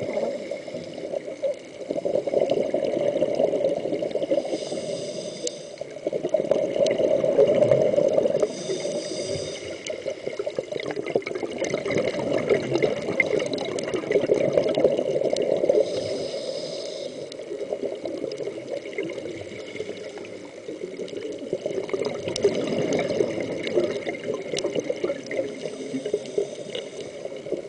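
Scuba diver breathing through a regulator underwater: bubbly exhalations that swell and fade every few seconds, with three short hisses of inhalation.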